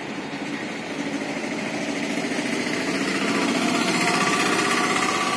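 Auto-rickshaw's small engine running as it drives past close by, growing louder and loudest about four to five seconds in.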